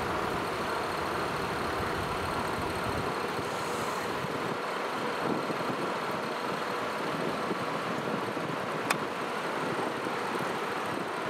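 Large trucks idling with a steady engine noise, and a single sharp click about nine seconds in.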